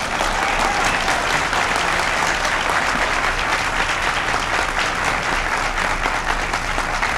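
A large audience applauding, swelling up at the start and then holding steady.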